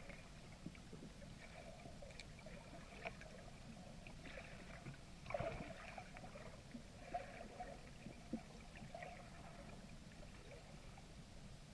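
Faint, muffled underwater sound of river water heard from a submerged camera: a low steady rumble with a few soft knocks and brief muffled sounds.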